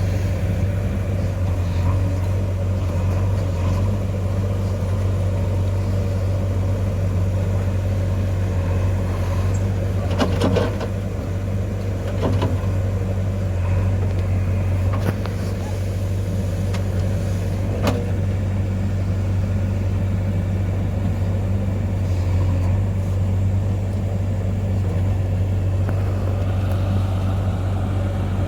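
Diesel engine of a JCB 3DX backhoe loader running steadily under work, with a few sharp knocks partway through.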